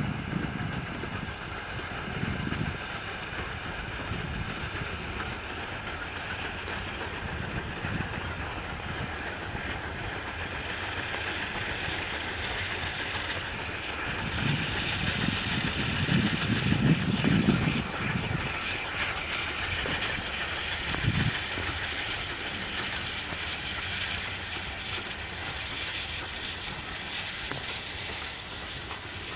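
Steam-hauled passenger train running past at a distance, its wheels clicking steadily over the rail joints, with wind gusting on the microphone; loudest about halfway through.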